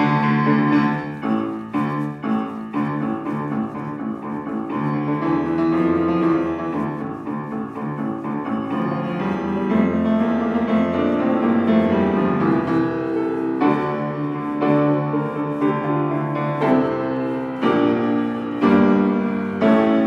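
Solo grand piano played live: dense chords with sharply struck accents about two seconds in, a stretch low on the keyboard in the middle, and a run of hard-struck chords near the end.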